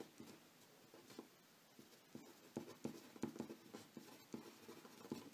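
A pen writing on paper: faint, short scratching strokes, sparse at first and coming quickly one after another from about halfway.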